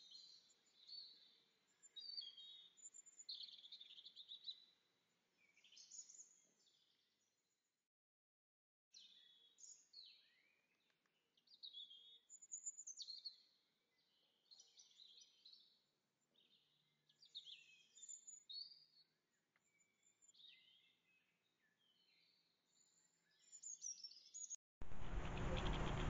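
Goldfinch twittering in short, faint, high bouts of swooping notes, with a silent gap of about a second a third of the way in. Near the end it cuts abruptly to a much louder, steady rushing noise.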